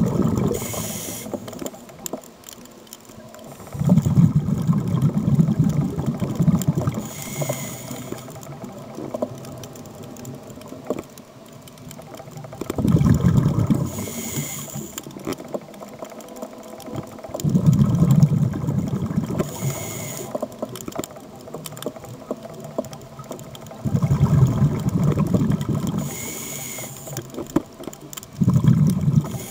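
Scuba diver breathing through a regulator, about every six seconds. Each breath is a short hissing inhalation, followed by a louder burst of exhaled bubbles lasting two to three seconds. There are five or six breaths.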